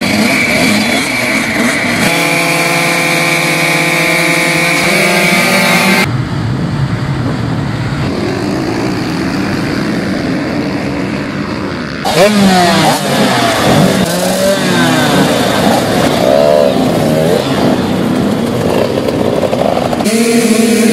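Several motocross motorcycles running and revving at the start gate, then a pack of them accelerating hard, many engines rising and falling in pitch through the gears. About the last second returns to bikes holding steady revs at the gate.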